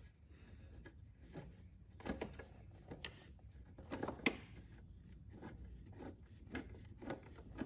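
Faint, scattered small metal clicks and light scrapes as fingers turn out a loosened 12 mm bolt holding the horn bracket.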